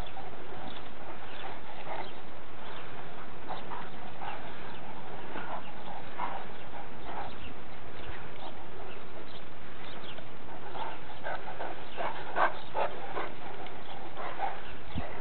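Great Danes playing and chasing bubbles: scattered short, irregular clicks and snaps over a steady hiss, thickest about three-quarters of the way through.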